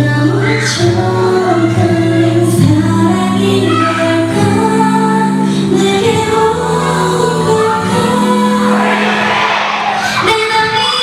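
K-pop girl group song played loud over a sound system, with several female voices singing a slow melody in harmony over the backing track.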